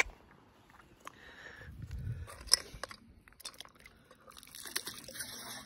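Cooked crab shells crunching and clicking against a metal pot as it is tipped, then a spray of shells pattering onto the sea's surface near the end.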